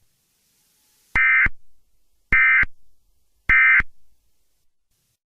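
Three short, identical bursts of EAS SAME digital data tones, about a second apart: the end-of-message code that closes an Emergency Alert System broadcast.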